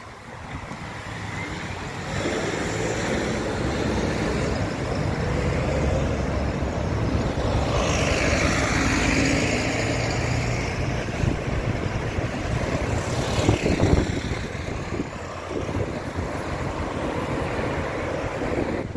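Road traffic: double-decker buses and cars driving past, their engines and tyres running steadily, with one vehicle passing close around the middle. A sharp knock sounds twice about two-thirds of the way through.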